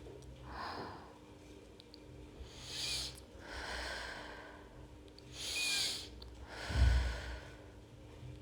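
A person breathing slowly and deeply through the nose while resting after holding a yoga backbend: a series of long breaths in and out, the last exhale the loudest, with a low puff of air.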